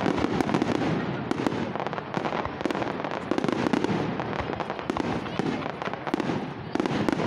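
Fireworks display: aerial shells bursting in rapid succession, a continuous run of bangs and crackles.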